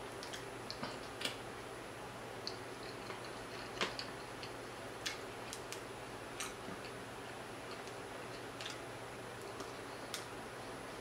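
Irregular soft clicks and crackles as a cooked croaker fish is picked apart with the fingers and eaten, a handful of small snaps spread a second or so apart.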